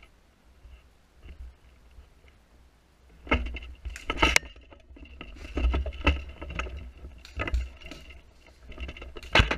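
Irregular sharp clacks and knocks from an airsoft rifle, picked up by a camera mounted on the gun. They begin about three seconds in, several to a second at times, each with a low thud.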